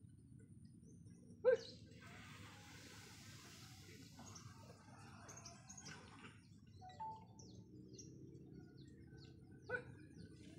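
Quiet open-air ambience with faint bird chirps. A short sharp sound comes about a second and a half in, and two fainter brief sounds come later.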